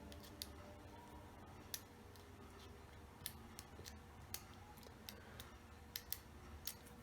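Faint, irregular small metallic clicks of a hook pick working the pin stack inside a SEGAL 5-pin pin-tumbler lock cylinder, about a dozen spread over several seconds.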